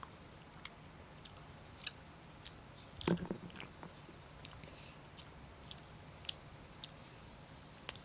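Chewing and biting into Kit Kat chocolate wafer bars: a louder bite about three seconds in, with scattered small mouth clicks around it.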